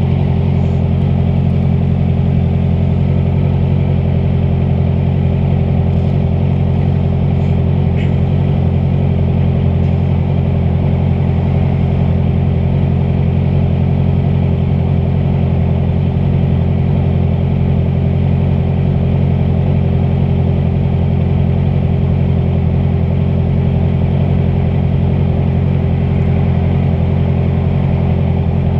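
Honda CBR650F's inline-four engine running at a steady cruise, holding an even note throughout, with rushing wind and road noise.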